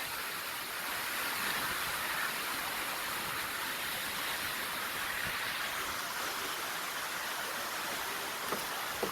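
Steady rush of running and falling water, an even hiss with no distinct splashes.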